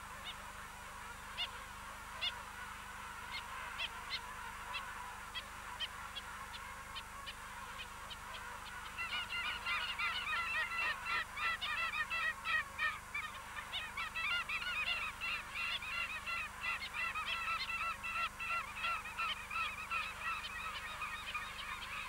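King penguin colony calling. At first it is a faint clamour with scattered short ticks; from about nine seconds in it becomes a dense, continuous run of rapid, wavering, repeated calls from many birds.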